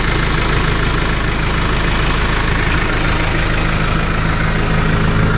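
Case IH 75C tractor's four-cylinder diesel engine running steadily, a constant low hum with a noisy hiss above it.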